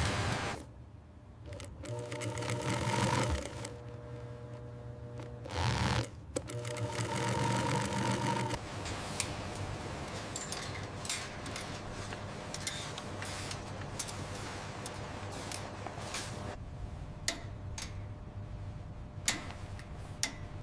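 Workshop machinery running in several short, abruptly cut stretches, some with a steady hum. It settles into a steadier run of machine noise with scattered sharp clicks about eight seconds in.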